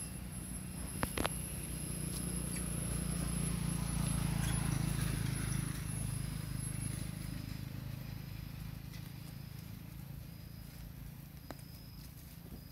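Rustling and footsteps in dry leaf litter, swelling to its loudest in the middle, with a couple of sharp clicks about a second in. A thin, steady high whine runs under the first half and then fades.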